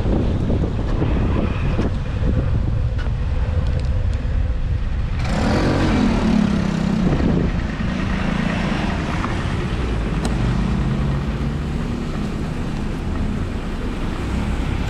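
Road traffic heard from a moving bicycle on wet streets, over a steady low noise of wind on the microphone. About five seconds in, a motor vehicle passes close, its engine note falling in pitch, and a lower engine hum runs alongside near the end.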